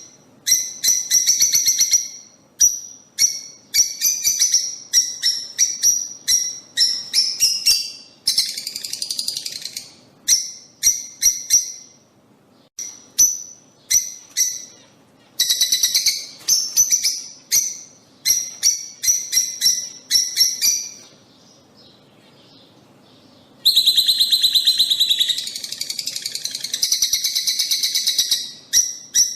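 Lovebirds chirping and chattering in rapid runs of sharp, high-pitched calls, broken by short pauses, with a dense stretch of nonstop chattering near the end.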